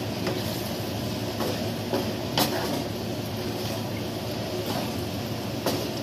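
A wooden spatula stirring and tossing chunks of beef and potato in curry paste in a wok, with several sharp scrapes and knocks against the pan over a steady frying hiss.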